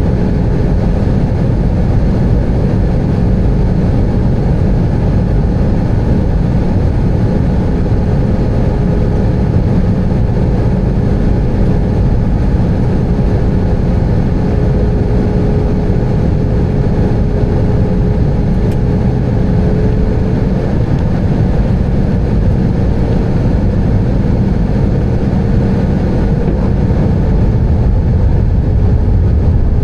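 Steady cabin noise of an Airbus A320 from a window seat: a deep rumble of the engines and airflow, with a faint steady whine over it.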